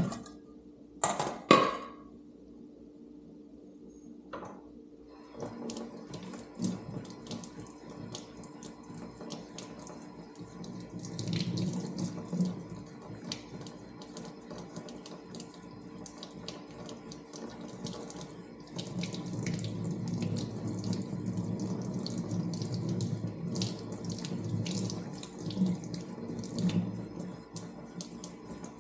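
Water running, as from a tap, with splashing and scattered clicks. It starts about five seconds in after a few sharp clicks and grows louder twice, around the middle and for much of the second half.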